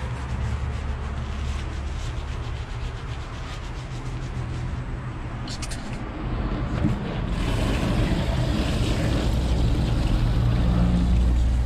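Hands scrubbing shampoo lather into hair close to the microphone, with a low rumble underneath. From about seven seconds in, a shower head sprays water over the hair in a steady hiss.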